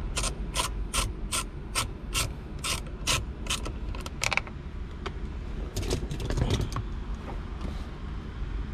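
Hand ratchet clicking steadily, about three clicks a second, as a T40 Torx bit on a long extension backs out a bolt holding a BMW's automatic gear selector assembly. The clicking stops about four and a half seconds in, and a few more clicks follow around six seconds.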